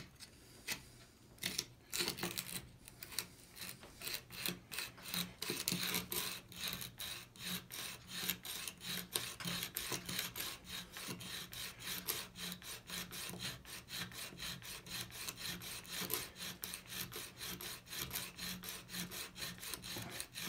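Steel chisel bevel being ground on a coarse 100-grit sharpening stone in an MPower FastTrack Mk2 jig, its carriage pushed back and forth in quick, even rasping strokes starting about a second in. It is the long coarse grind that takes the bevel of an old chisel to 25 degrees.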